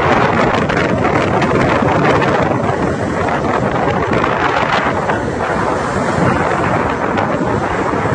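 Strong storm wind buffeting the microphone over rough sea, a loud and steady rush of noise.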